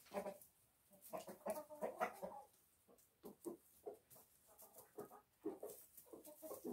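Chickens clucking quietly, a steady scatter of short, separate calls.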